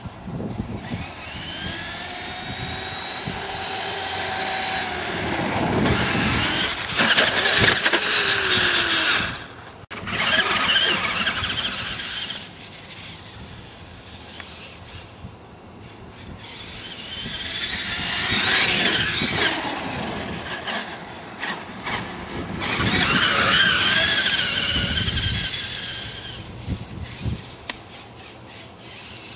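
Traxxas E-Maxx electric RC monster truck's motor whining, rising and falling in pitch as it accelerates and slows in several short runs.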